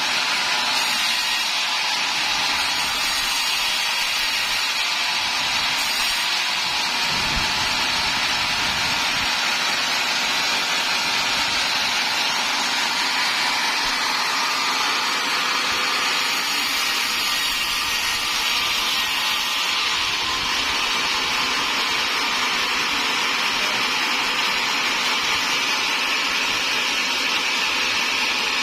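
Sawmill saw and its drive motor running steadily, cutting timber, a loud continuous noise without a break.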